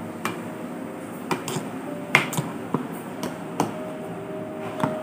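Metal spoon stirring thick oats batter in a stainless steel pot, clinking against the side of the pot about nine times at irregular intervals.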